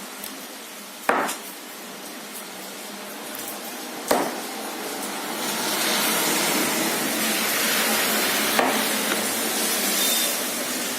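Two sharp knocks about three seconds apart, over a steady hiss that grows louder about halfway through.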